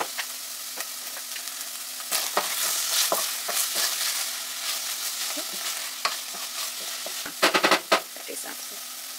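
Wooden spoon stirring green beans and spinach in a saucepan, scraping the pan, over a steady sizzle from the vegetables cooking in a little oil. Near the end comes a quick run of sharp knocks of the spoon against the pan.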